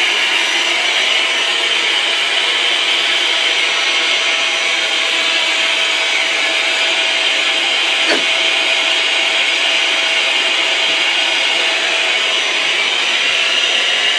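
Small vacuum cleaner running steadily, a constant hissing whine with a faint steady hum under it. A brief knock about eight seconds in.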